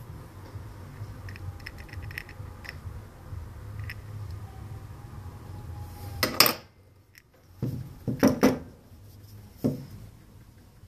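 Hard metal parts being handled on a workbench: a few light clicks, then a loud clatter just past the middle, a quick cluster of knocks about two seconds later, and one more knock near the end.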